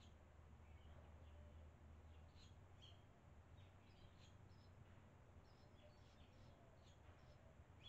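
Faint barn swallow chirps and twitters: a scattered string of short, high calls over a steady low hum.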